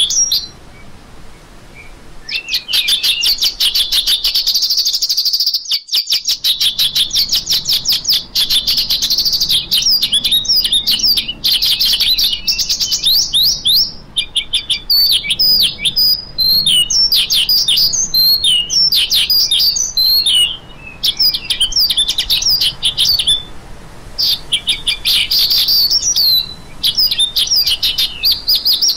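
A lark singing a long, fast stream of high chirps and trills, with a short pause near the start and a couple of brief breaks later on.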